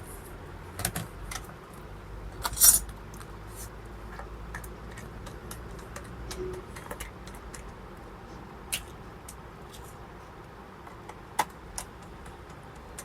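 Scattered small clicks and taps of a laptop and tools being handled as its bottom case is opened, with one louder clack about two and a half seconds in.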